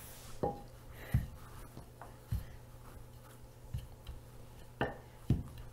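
Wooden rolling pin rolling pie dough on a floured counter: soft rubbing strokes broken by about six dull knocks, the loudest two near the end.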